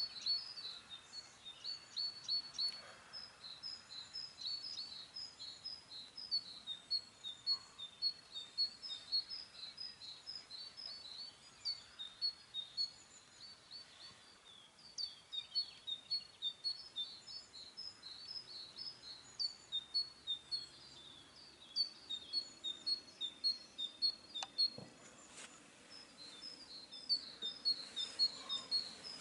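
Small songbirds singing, a continuous run of short high chirps several a second, with one brief click about 25 seconds in.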